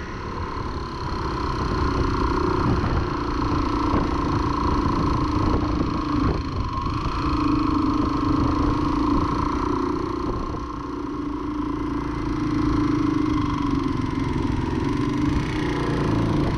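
Single-cylinder 250 cc dual-sport motorcycle engine heard from on board the bike while riding a gravel track. Its note rises and falls with the throttle and eases off about ten seconds in before picking up again.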